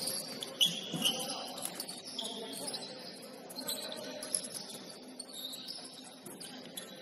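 Basketball shoes squeaking on a gym floor during play: many short, high squeaks scattered throughout, with a few sharp knocks, over a low murmur of voices.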